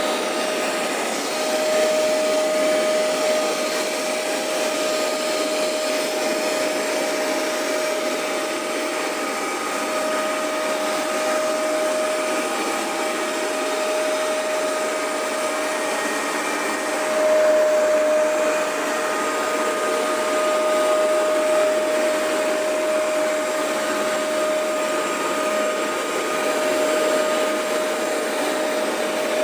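Hoover MaxExtract 77 carpet cleaner running steadily as it makes cleaning passes over carpet: a constant motor drone with a steady whine over it.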